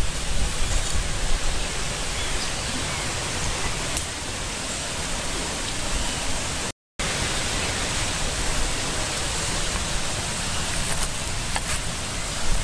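Steady outdoor hiss with a flickering low rumble of wind buffeting the microphone. The sound drops out for a split second a little past halfway.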